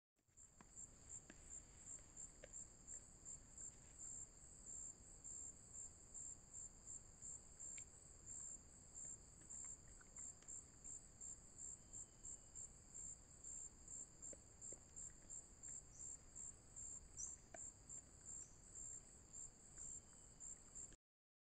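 Faint steady high-pitched chirping of insects in the forest, pulsing about twice a second, with a few faint scattered clicks and short falling chirps in the second half.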